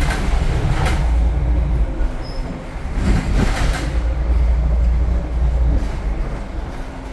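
Temsa Avenue LF city bus running, its DAF diesel engine and ZF gearbox giving a loud, steady low rumble with short rattles, about a second in and again near the middle.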